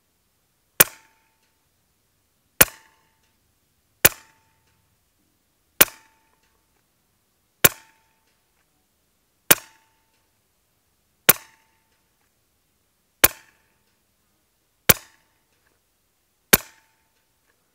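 Daystate Red Wolf pre-charged pneumatic air rifle firing ten shots, about one every two seconds, each a sharp crack followed by a brief ringing tone.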